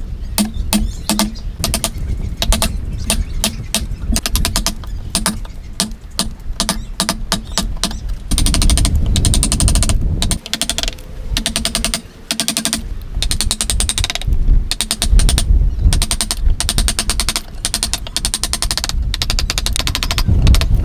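Wood chisel driven into timber by a wooden mallet: a quick, steady series of sharp knocks, several a second, with brief pauses about ten and twelve seconds in.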